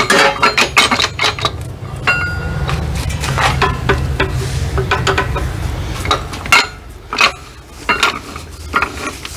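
Steel transmission gears and shaft in a Case 580SK gearbox clinking and knocking as a large gear is rocked and turned by hand to get it to mesh and sit down. Some of the strikes ring briefly, and there is a low rumble under them for the first six seconds or so. The gear won't seat because its shaft is leaning against the crown wheel instead of sitting on its bearing.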